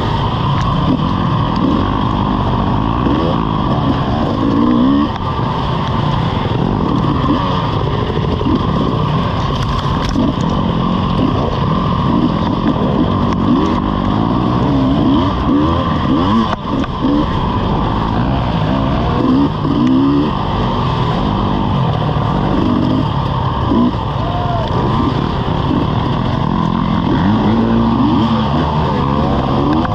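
Dirt bike engine, heard on board, revving up and down constantly as it is ridden hard along a rough woodland race trail, its pitch rising and falling every second or two.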